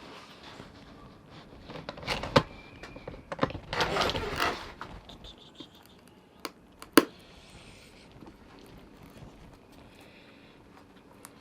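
Handling noises: a rustling scrape and two sharp knocks, the loudest about seven seconds in, with a few fainter clicks.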